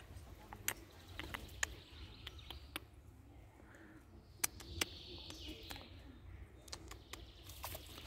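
Scattered sharp crackles and light rustling of dry pine needles and leaves as a dark-morph Eurasian red squirrel digs and rummages in the forest-floor litter.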